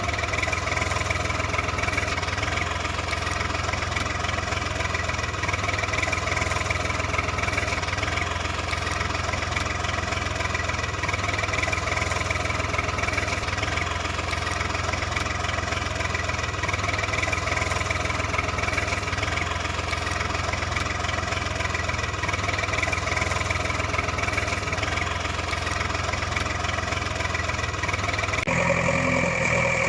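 Steady idling engine sound, unchanging, then switching abruptly to a different engine sound about 28 seconds in.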